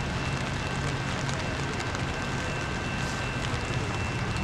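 Steady low rumble of a slowly approaching train's diesel locomotive, with an even hiss and two faint steady high tones over it.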